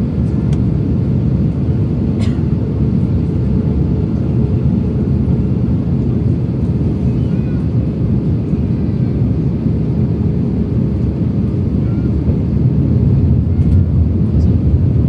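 Steady rumble of an Airbus A321's engines and airflow heard from inside the passenger cabin, with a faint steady hum over it. A single sharp click about two seconds in.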